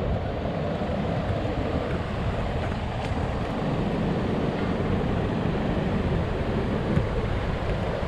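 Steady outdoor background noise: an even, low hiss and rumble with no distinct events.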